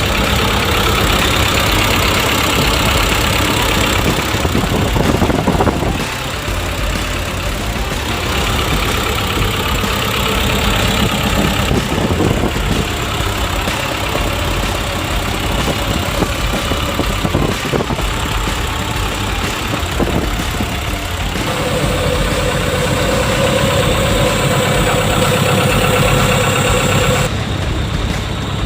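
Kobelco SK140LC-8 crawler excavator's diesel engine running, its sound swelling and easing in stretches of several seconds as the machine works. For several seconds near the end a steady whine rides over the engine, then stops.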